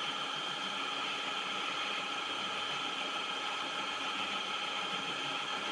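Manual metal lathe running steadily with its chuck spinning: an even whir of the headstock gears, with several steady tones over a mechanical rattle.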